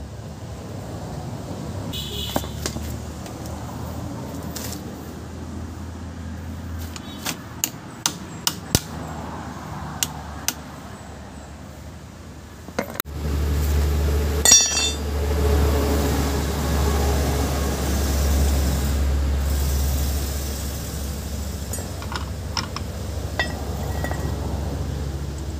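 Sharp metal taps and clinks of a hammer driving a screwdriver against the staked axle nut of a Suzuki Multicab's front hub, knocking out the crimped collar so the nut can turn. About halfway in a loud low steady rumble sets in, with a ringing metal clatter just after it starts, and lasts almost to the end.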